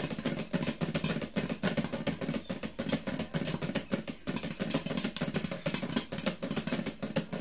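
Popcorn kernels popping fast and irregularly in a covered frying pan on a gas stove, a dense run of sharp pops near the end of popping.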